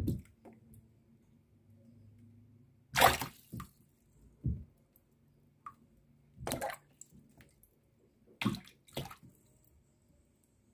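Water splashing in a shallow plastic tub as a common snapping turtle and a fish thrash about: a string of short, separate splashes, the loudest about three seconds in.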